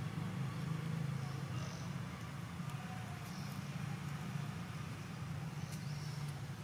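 A steady low buzzing hum that swells and fades a little, with a few faint, brief high chirps over it.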